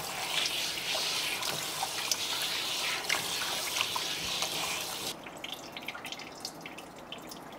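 Kitchen tap running into a stainless steel bowl as raw chicken neck meat is rinsed and rubbed by hand; about five seconds in the water shuts off, leaving water dripping from the meat lifted in a plastic strainer.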